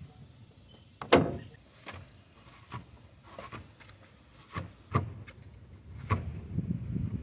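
Metal tools and engine parts clinking and knocking as they are handled and lined up during a water pump replacement. The knocks are irregular, the loudest about a second in, with rubbing and handling noise between them.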